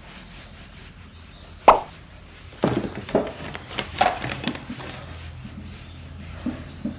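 A cloth wiping down a painted tabletop by hand: one sharp knock just under two seconds in, then a stretch of rubbing and bumping against the table, and two light taps near the end.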